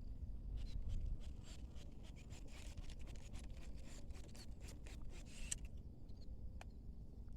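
Rapid, irregular light clicks and scraping over a steady low rumble; the clicking dies away about five and a half seconds in.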